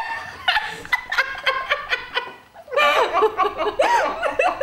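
Women laughing together, giggling and chuckling, with a short lull about halfway through before the laughter picks up again.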